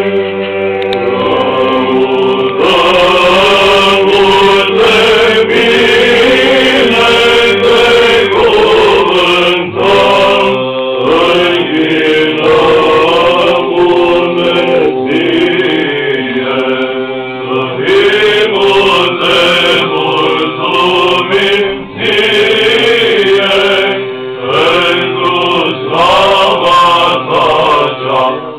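Orthodox church chant sung by a choir: a melody moving over a steady held low note, with short breaks between phrases.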